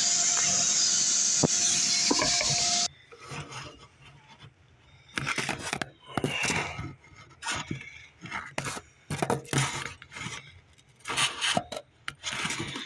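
A vacuum cleaner running with a steady hiss and faint hum, then switching off suddenly about three seconds in. After it, irregular scraping and rubbing strokes as the mouse nest material is dug out.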